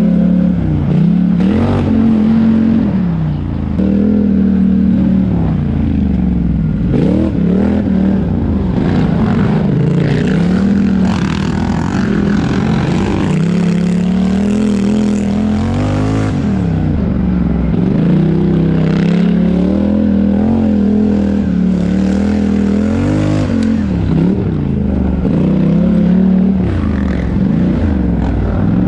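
4x4 racing ATV engine under hard throttle, its pitch rising and falling every second or two as the rider accelerates and lets off.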